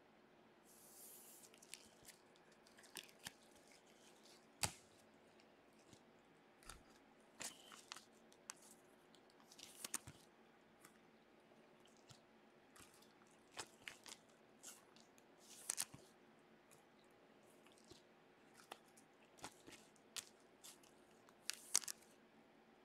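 Trading card packs and cards being handled by gloved hands: scattered short crinkles and taps of wrappers and cardboard, with a brief rustle about a second in and the loudest snaps about four and a half seconds in and near the end.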